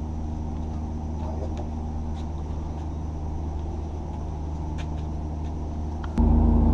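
Steady low engine drone made of several fixed tones, with a few faint clicks over it. About six seconds in it cuts suddenly to a much louder, steady engine drone.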